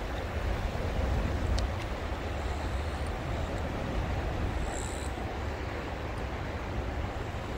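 Steady outdoor background noise: a fluctuating low rumble under an even hiss, with no distinct events.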